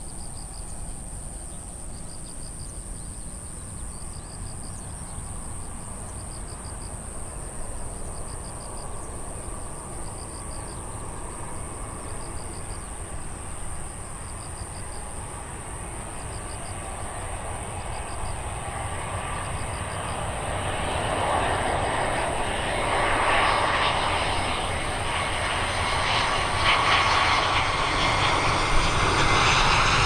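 Jetstar Airbus A320 jet airliner on final approach, its engine rumble and whine growing steadily louder over the last ten seconds as it comes in to land, with a whine rising in pitch near the end. Through the first twenty seconds an insect chirps in short trills about every second and a half.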